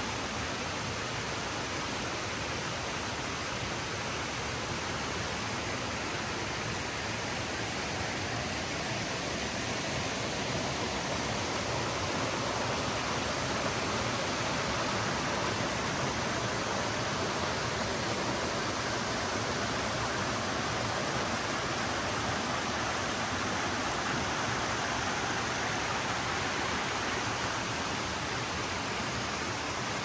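Waterfall running full after the rainy season: a steady, even rush of falling water that grows a little louder partway through.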